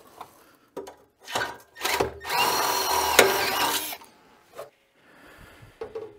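Cordless drill back-drilling bolt holes through a sleigh ski. A few short trigger pulls come first, then from about two seconds in there is a longer burst of drilling of nearly two seconds, the motor whine rising as it spins up and falling as it stops.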